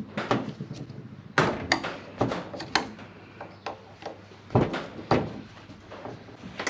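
Irregular clicks and knocks of hand tools and small metal parts handled on a workbench while a throttle body is taken apart, with sharper knocks about a second and a half in and twice more past halfway.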